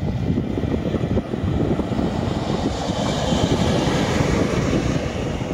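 WM-15AK track maintenance motor trolley passing on its diesel engine, with engine and running noise that swells about three seconds in and then eases.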